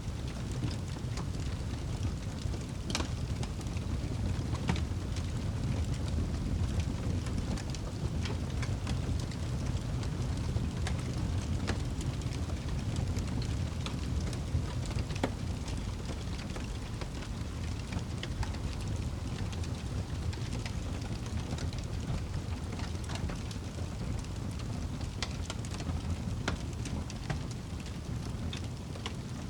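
Wood fire burning in a fireplace: a steady low rumble of flames with scattered sharp crackles and pops from the burning wood.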